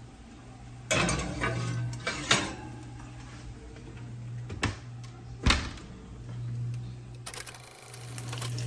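Metal oven racks and an aluminium foil tray clattering as trays of vegetables are loaded into an oven: four sharp knocks spread over several seconds, over a steady low hum.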